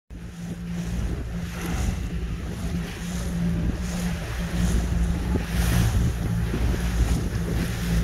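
A small boat's motor running steadily while under way, with wind buffeting the microphone and water rushing and splashing along the hull.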